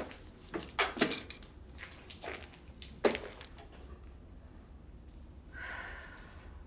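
A handful of light clinks and knocks of small hard objects being handled, the sharpest about a second in and again about three seconds in, followed by a short faint tone near the end.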